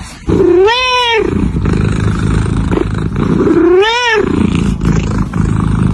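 A kitten meowing twice, about a second in and again about four seconds in, each meow rising and then falling in pitch. A continuous low rumble runs between and under the meows.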